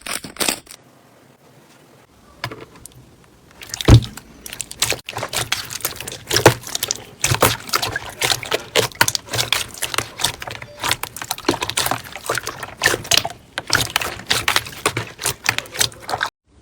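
Slime being squeezed and worked by hand: a dense run of wet, sticky clicks and pops that begins a couple of seconds in and runs on until it cuts off abruptly near the end.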